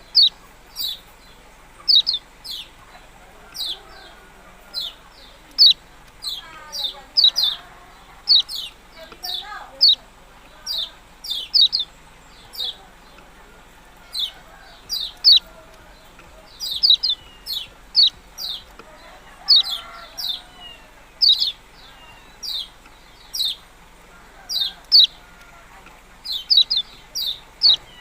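Kecial kuning songbird repeating short, sharp 'ciak' chirps, each a quick falling note, about one to two a second and now and then in quick runs of two or three.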